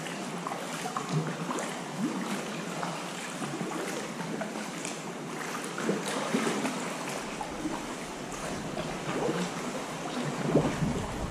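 Sea water lapping and splashing around a kayak, with the small splashes of paddle strokes. Wind rumble on the microphone builds toward the end.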